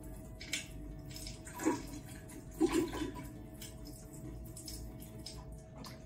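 Saline rinse squeezed through the nose and running out into a stainless steel sink, with a few short, louder wet sputters about half a second, one and a half, and two and a half seconds in.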